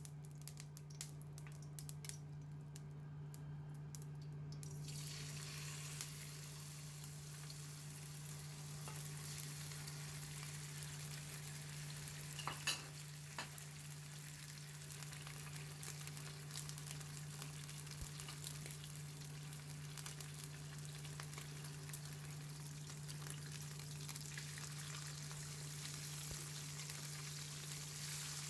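Hot oil crackling in a stone-coated frying pan, swelling about five seconds in into a steady sizzle as beef steaks fry. A sharp knock sounds about halfway through, over a steady low hum.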